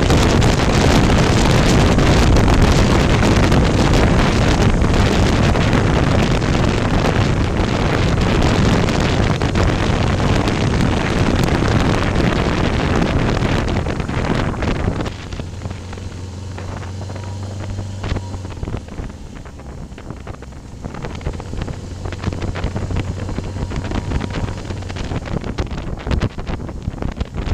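Wind buffeting the microphone on a moving motorcycle, over the steady low hum of its engine. About fifteen seconds in the wind noise drops and the engine hum comes through more clearly, then the wind builds again near the end.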